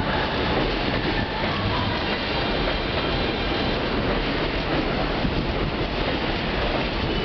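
New York City subway N train rolling along the platform: a steady noise of steel wheels on the rails, with no pauses or distinct knocks.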